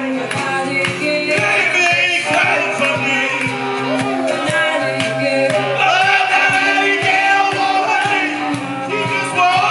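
Live band playing a blues song: a lead line that bends in pitch over steady low notes and a regular beat.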